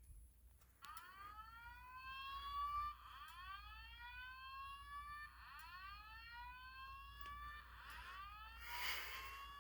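Simplex voice-evacuation fire alarm sounding its whoop alert tone after a pull station is pulled: a repeating rising sweep, each about two seconds long, starting about a second in. Near the end comes a short burst of noise.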